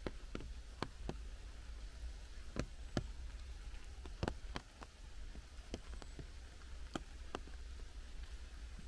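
Light rain in a leafy forest: a soft steady hiss, with large drops falling irregularly from the trees as sharp ticks and taps, one to three a second, over a low steady rumble.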